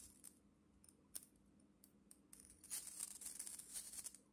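Faint handling noise as connecting wires are fitted to a transistor switching circuit: scattered small clicks, then scratchy rustling from about halfway in, over a faint steady hum.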